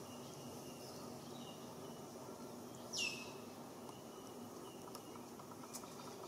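Outdoor ambience with a faint, steady insect hum and scattered faint high chirps. About three seconds in comes one short, high-pitched animal call that falls sharply in pitch.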